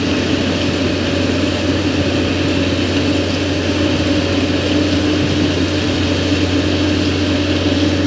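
Plasser PBR-400R railway ballast regulator at work on the track, its diesel engine running steadily with a constant hum under a dense mechanical rattle as its plough pushes the ballast stones.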